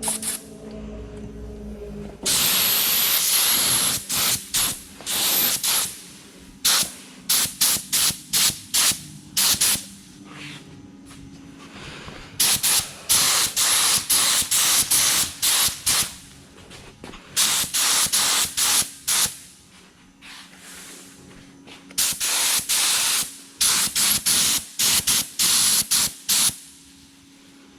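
Compressed-air spray gun spraying primer in repeated trigger pulls: one long spray about two seconds in, then a run of short bursts, each under a second, with brief pauses between.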